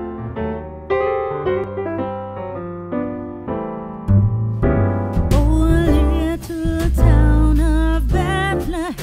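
Background music: electric piano chords, joined about four seconds in by a heavy bass and beat, with a voice singing over it soon after.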